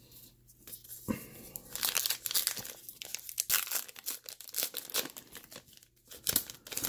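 Wrapper of a Heritage baseball card pack being torn open and crinkled by hand. A few light clicks, then from about two seconds in a dense run of irregular crackles as the wrapper is peeled back.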